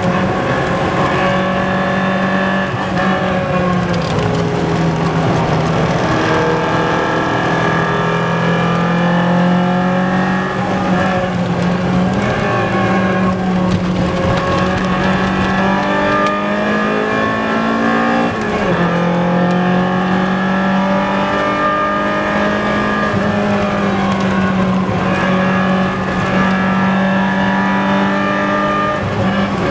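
BMW M3 E30's four-cylinder engine running flat out at high revs, loud and continuous, its pitch dipping and climbing again several times with gear changes and corners.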